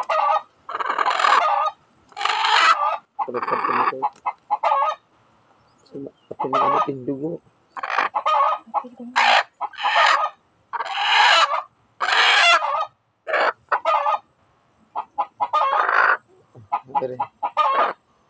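A hen squawking loudly over and over, about a dozen harsh calls roughly one a second, in distress at being held upside down while its wing feathers are clipped.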